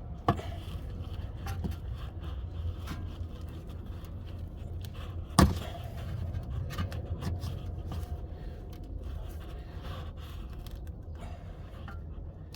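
Hand work on a car's plastic wheel-arch liner and trim clips: scraping and small clicks, with a sharp snap about a third of a second in and a louder one about five seconds in, over a low steady hum.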